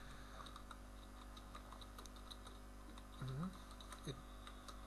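Faint typing on a computer keyboard, scattered light key clicks as a line of Java code is typed. About three seconds in there is a brief murmur of a man's voice, and another short one a moment later.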